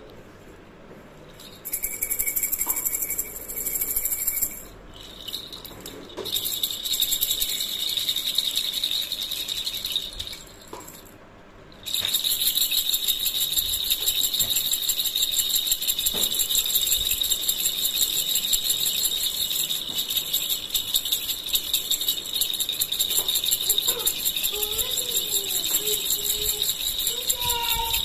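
Plastic baby rattle (jhunjhuna) shaken rapidly by hand, a dense high-pitched rattling and jingling. It comes in two short bursts with brief pauses, then runs continuously from a little before halfway.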